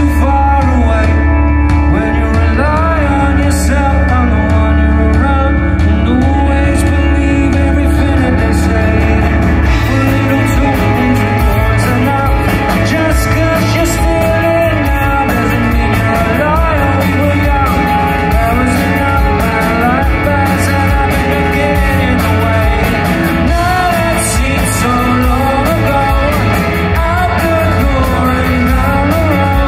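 Live indie rock band playing a song: electric guitars, bass guitar and drums with a male lead singer. A held low bass note gives way to a steady, driving beat about ten seconds in.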